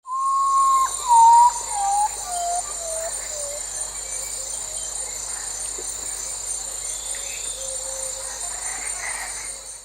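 A bird's descending series of about six clear whistled notes, each lower than the last, followed by fainter scattered calls, over a steady high-pitched insect chorus: rainforest ambience.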